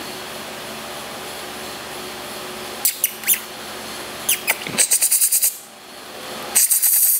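A puppy pawing and scratching at a fabric blanket, its claws making quick runs of rapid scratchy strokes about two-thirds of the way in and again near the end, with a few scattered clicks and short squeaks before them.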